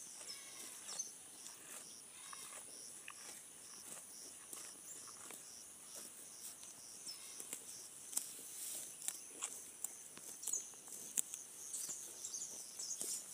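Holstein cow cropping grass: irregular short crisp tearing and crunching sounds, coming more often and louder in the second half, over a steady high pulsing chirp of insects.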